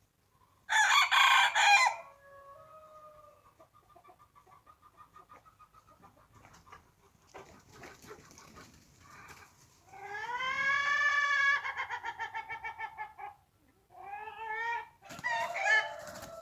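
Roosters crowing among clucking hens: a loud short call about a second in, quieter clucking after it, then a long drawn-out crow around ten seconds in. Near the end come harsher calls as two roosters scuffle.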